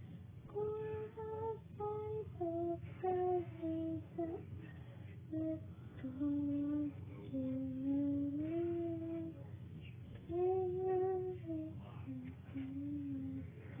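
A young boy singing a slow tune in a high voice, with long held notes and short breaks between phrases.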